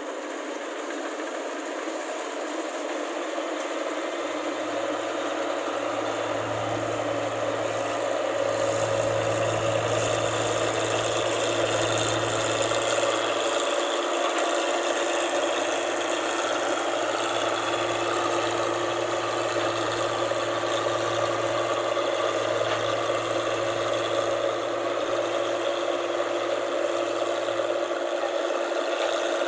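Rice combine harvester running with a steady mechanical rattle, growing louder over the first several seconds and then holding steady.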